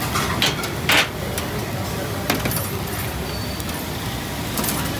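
A few sharp metal clinks and scrapes of a spatula against a charcoal grill grate and a steel serving tray, the loudest about a second in, over steady street background noise.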